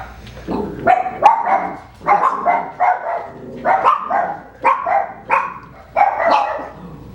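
Five-week-old Coton de Tulear puppies barking in a rapid, high-pitched run, about two short barks a second.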